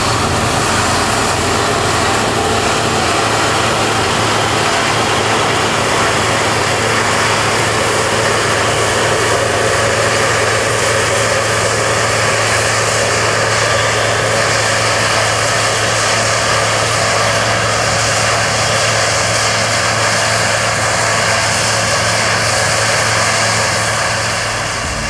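Massey Ferguson 40 combine harvester running steadily while cutting wheat: a constant engine hum under a dense rushing clatter of the cutting and threshing machinery, easing slightly near the end.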